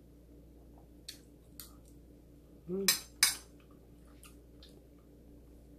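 A metal spoon clicking and scraping against a plate of rice and vegetables: a handful of light, separate clinks, the sharpest about three seconds in. Just before that sharp clink there is a brief vocal sound from the eater.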